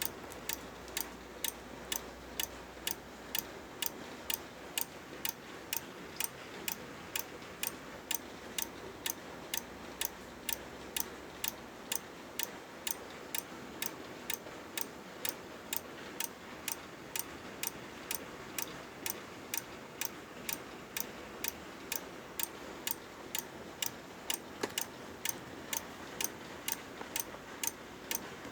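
Corsair computer power supply clicking steadily, about two sharp clicks a second, really loud over a faint background hiss.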